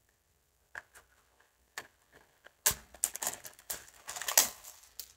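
Thin clear plastic bag crinkling as a calculator is slid out of it: a few scattered clicks at first, then a denser run of crackling in the second half.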